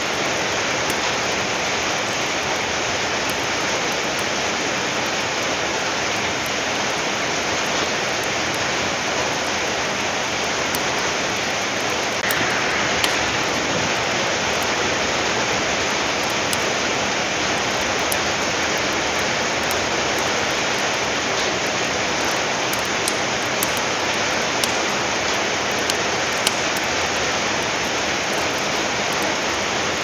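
Steady rain falling, with scattered sharp pops and crackles of a wood fire burning, more frequent in the second half.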